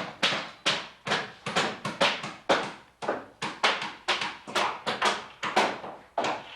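Hammer blows on wood, a steady run of sharp strikes about two a second, each ringing briefly.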